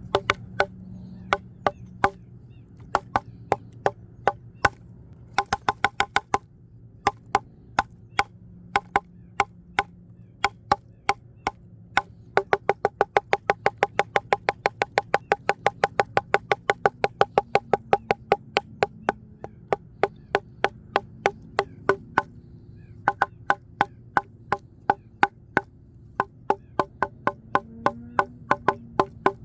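A wooden branch played as a percussion instrument, giving sharp, dry knocks with a short woody ring. The knocks come in irregular clusters, with a fast, even run of about five or six hits a second in the middle.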